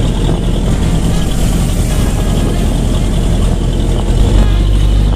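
Road vehicle engine running amid street noise, with a steadier low engine hum setting in about four seconds in.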